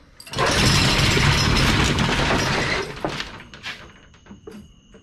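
Corrugated steel roll-up door being raised, its slats rattling loudly for about two and a half seconds, then a few knocks as it stops.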